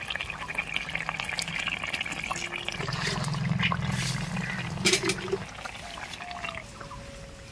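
Thin fish curry boiling in a metal pot: a steady bubbling with many small pops and clicks. A low hum joins in for about two seconds in the middle.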